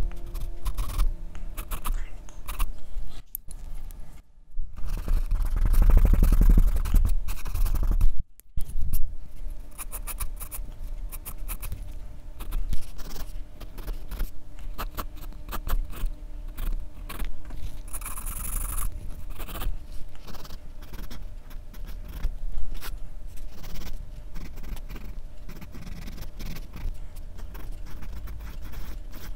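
Graphite pencil scratching across drawing paper in rapid, repeated hatching and shading strokes, breaking off briefly twice in the first eight seconds.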